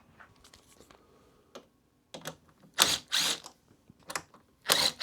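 Light clicks and two short rattling bursts of hand tools as a hex bit is swapped for a 3 mm one in a bit holder or ratchet.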